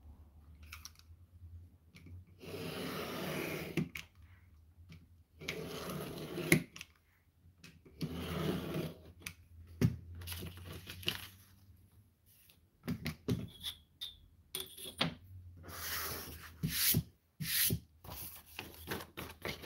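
Sheet of grid paper being cut along a steel ruler: four long scraping strokes, then sharp clicks and paper rustling as the ruler is moved and the cut sheet handled.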